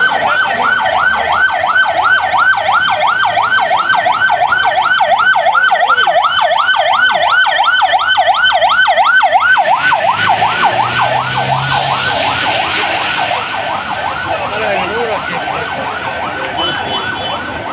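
Ambulance siren sounding in a fast yelp, rising and falling about three times a second. About ten seconds in, a rush of splashing water joins it as the ambulance's wheels push through the floodwater close by, and the siren then grows fainter.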